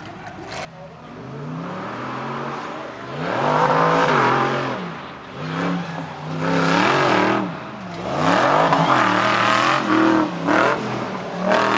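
Off-road racer engines revving hard and backing off again in about four loud surges, the pitch climbing and dropping with each.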